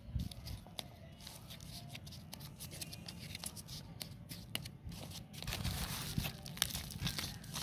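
Rustling and crackling as hands work potting soil and the plastic sheet under it, with scattered small clicks. The crackling gets busier about five seconds in.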